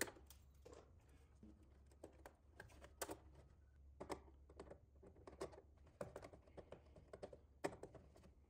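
Faint, irregular light clicks and taps of a bare copper ground wire and gloved fingers against the metal breaker panel as the wire is bent and tucked into place.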